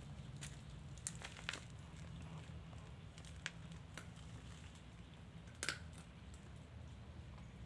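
Faint steady low background hum, with a handful of short, soft clicks and ticks scattered through it, about six in all.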